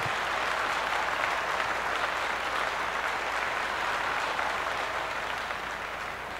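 Crowd applause, steady and then slowly fading out toward the end.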